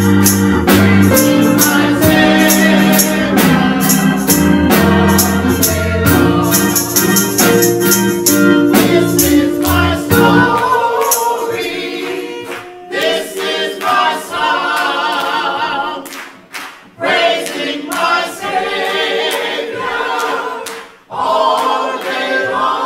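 Gospel choir singing with instrumental backing and a steady rhythmic beat. About ten seconds in, the bass drops out, leaving the voices over lighter percussion.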